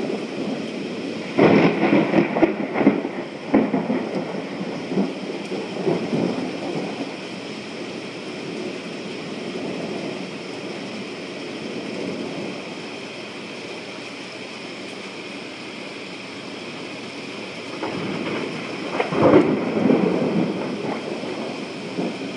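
Thunderstorm: steady rain with two rolls of thunder. The first starts sharply about a second and a half in and rolls for a couple of seconds; the second builds near the end and peaks a few seconds before the end.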